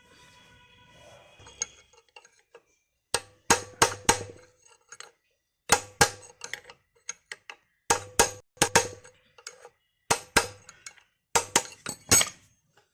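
Metal clinking and tapping, in short clusters of sharp knocks about every two seconds, as of hard metal parts or tools striking each other.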